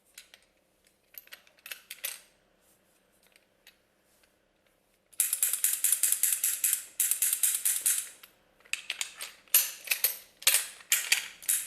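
A few light metal clicks, then, about five seconds in, repeated bursts of rapid, high-pitched metallic rattling and scraping with short gaps between them.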